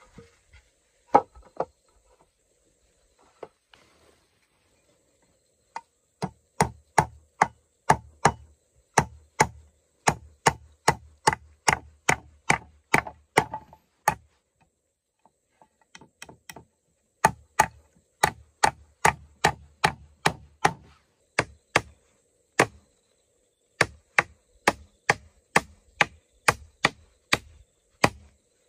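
Repeated chopping strokes of a hand tool, about two a second, in three long runs with short pauses between them. There are a few scattered strikes before the runs begin.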